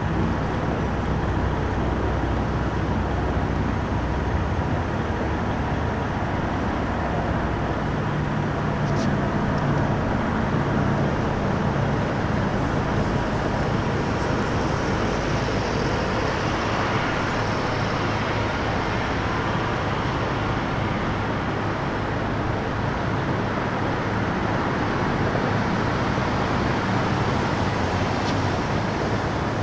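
Steady freeway traffic noise, an even rushing sound with a faint low hum underneath.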